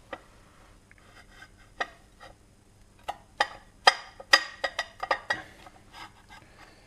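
Metal clicks and knocks from the two halves of a Lambretta TV175 disc brake hub casing as they are turned against each other by hand to seat the locating posts in their holes. A scattering of sharp clicks, some with a short ring, comes thickest from about three to five and a half seconds in.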